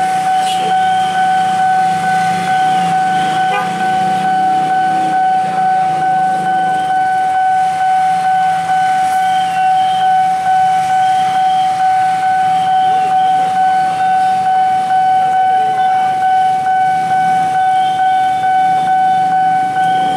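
Railroad level-crossing warning alarm sounding one steady, unbroken high electronic tone, with engines idling underneath.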